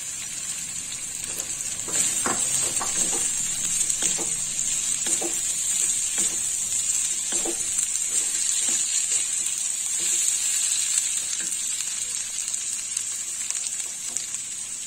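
Batter-fried fish pieces, onion, green capsicum and green chillies sizzling in hot oil in a non-stick pan, with a steady hiss throughout. They are stir-fried with a wooden spatula, whose scrapes and knocks on the pan come mostly between about two and eight seconds in.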